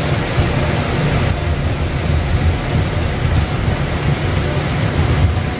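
Small cascading waterfall pouring over rocks into a pond: a steady rush of falling water with a deep churning rumble underneath.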